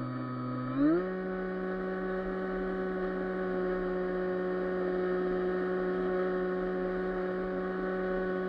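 Electric motor and propeller of a Bixler 3 foam RC plane: a steady whine that rises in pitch as the throttle is opened about a second in, then holds.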